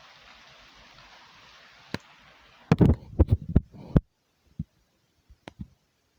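Steady hiss, then about three seconds in a quick cluster of loud, low, sharp thumps lasting about a second, after which the hiss cuts off abruptly and a few faint clicks follow.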